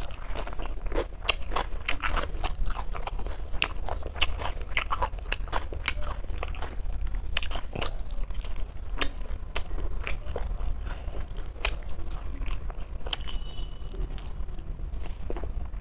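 A person eating rice and curry close to the microphone: wet chewing and biting with many irregular sharp mouth clicks and lip smacks, over a steady low hum.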